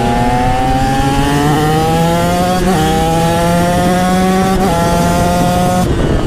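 Two-stroke engine of a TM SMR 125 supermoto pulling steadily under acceleration, its pitch climbing slowly with three brief wobbles. It cuts off shortly before the end, leaving a rushing noise.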